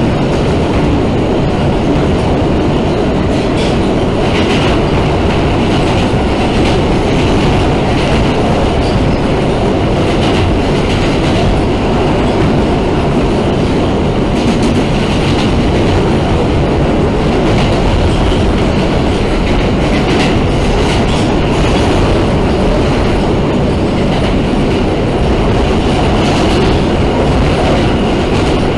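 New York City subway car running between stations, heard from inside the car: a steady loud rumble, with the wheels clacking over rail joints now and then.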